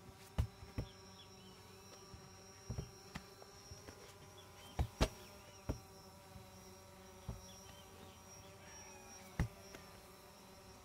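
Heavy medicine balls and a sandbag dropped onto artificial turf: about ten dull thumps at uneven intervals, the loudest two close together about five seconds in. Under them runs a steady high buzz.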